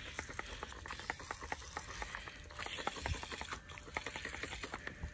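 Hand-held trigger spray bottle being squeezed again and again, a quick, uneven run of clicks as it spritzes liquid onto plant leaves.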